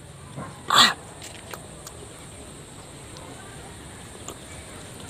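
A single short, sharp breath noise from the man eating, about a second in, over faint background with a few soft clicks.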